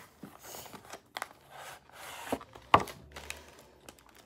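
Hands handling and opening a small cardboard box: soft rustling and scraping of card with scattered sharp taps and clicks, the loudest a single snap about three-quarters of the way through.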